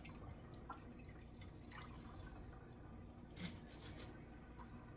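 Faint water sounds in a kitchen sink as the water is let out: drips and small splashes, with one brief louder noise about three and a half seconds in.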